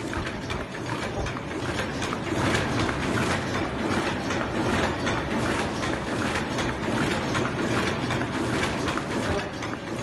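2.5 oz paper cup forming machine running at production speed: a steady, dense clatter of rapid mechanical clicks and knocks from its indexing turret and moving parts.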